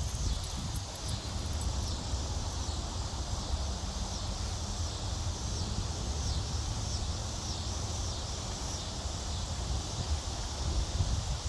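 Insects chirping in a steady repeating high-pitched pulse, over a low outdoor rumble.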